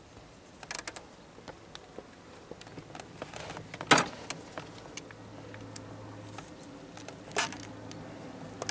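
Wires of a car radio wiring harness and a red plastic quick-splice connector being handled and squeezed shut with pliers: small scattered clicks and rustling, with a sharp click about four seconds in and another near the end.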